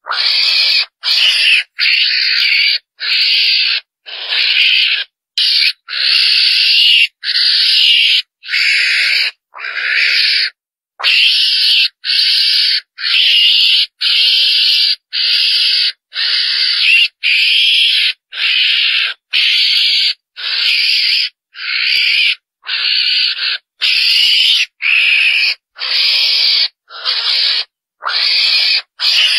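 Chồn đèn, a small mongoose-like carnivore, giving high, rasping calls about once a second, each under a second long and cut off by short silences, repeated steadily. This is a hunting lure call meant to bring others of its kind in.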